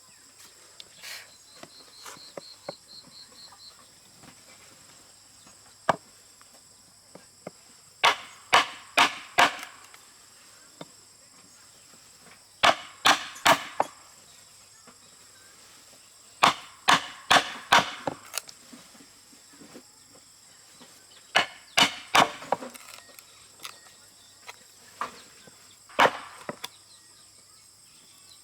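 Sharp blows striking wood in bursts of three to five quick strikes, repeated every few seconds, as when chopping or hammering timber.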